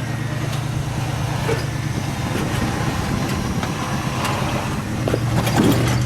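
Jeep engine running steadily at low revs while rock crawling up a rock ledge, with a few scattered knocks.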